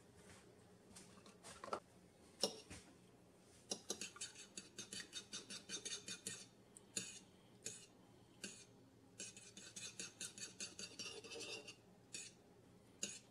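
A metal fork beating an egg into milk in a ceramic bowl, the tines tapping quickly against the bowl in two runs of about five taps a second. Before the beating there are a few single knocks, the loudest about two and a half seconds in.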